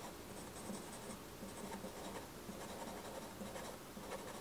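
Pastel pencil scratching on pastel paper in quick, faint scribbling strokes.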